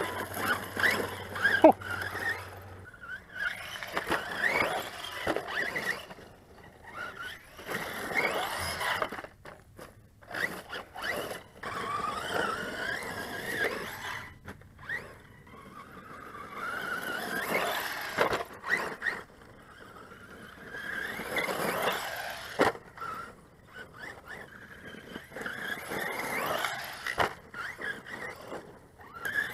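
The 3670 2500KV brushless motor of a 1:10 JLB Racing 21101 RC truggy whining in repeated bursts as the throttle is worked, its pitch rising as it speeds up, with tyres scrabbling in loose dirt and occasional knocks from landings and tumbles.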